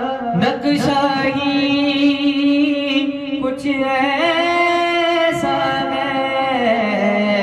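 Male voice singing a naat (Urdu devotional song in praise of the Prophet) through a microphone, drawing out long held notes that waver and step between pitches without clear words.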